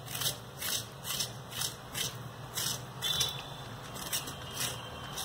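Small knife scraping the ridged skin off a bitter gourd (karela), in short, even strokes about two a second.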